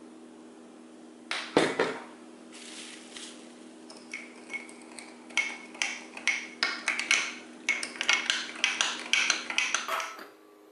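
A spoon stirring yeast into milk in a small glass jar, clinking against the glass in a quick run of light, ringing clicks, about three a second. A few sharp taps come about a second and a half in, as the measuring spoon knocks on the jar. A steady low hum sits underneath.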